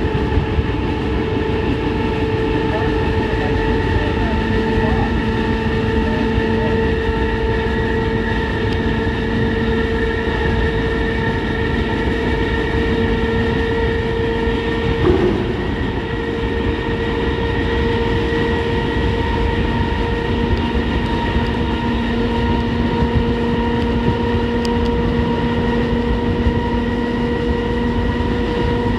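EMD locomotive in dynamic braking, heard inside the cab: a steady howl of several whining tones over the heavy rumble of the running locomotive. A lower tone comes in about five seconds in, drops out midway and returns as the brake handle is worked.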